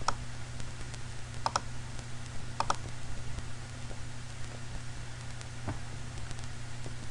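A few sharp clicks from a computer mouse, some of them in quick pairs, over a steady low hum.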